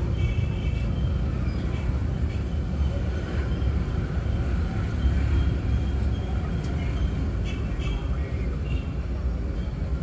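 Road traffic heard from a moving vehicle: a steady low rumble of engines and tyres on the road.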